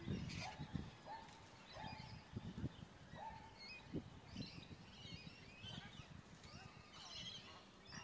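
Faint bird calls: a short call that rises quickly in pitch, repeated several times in the first few seconds, then higher twittering calls toward the end, over low thumps and rumble.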